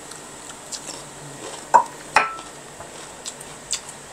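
Tableware clinking during a meal: two sharp clinks about two seconds in, the second with a short ringing tone, amid a few smaller taps.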